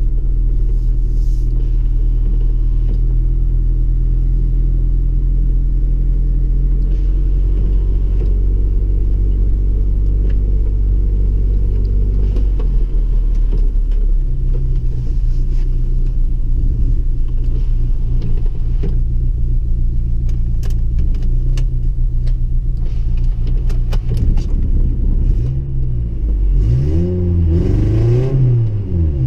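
1998 Chevrolet Tracker's engine heard from inside the cabin, running steadily under way, with the engine note changing about halfway through. Near the end the revs rise and fall several times in quick swells.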